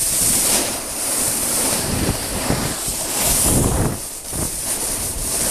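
Wind buffeting the camera microphone while a snowboard slides and scrapes over snow, a rushing hiss that swells and eases every second or so.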